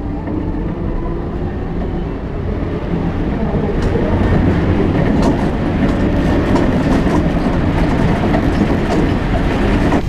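Wheelbob's wheels rumbling and rattling down the concrete bobsleigh track, growing louder over the first few seconds as speed builds, with scattered knocks.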